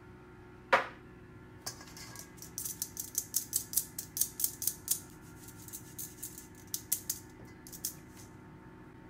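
Fine-mesh stainless steel sieve knocked and tapped against a stainless steel mixing bowl to shake flour and tea powder through: one loud knock about a second in, then a run of quick, sharp metallic taps at about three a second, with a few more near the end.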